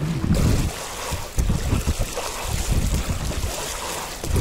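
Wind buffeting the microphone in uneven gusts over lapping water and the splash of a stand-up paddle board's paddle strokes.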